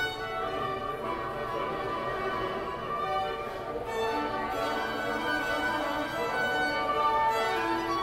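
Two violins playing a melody together, bowed in long held notes.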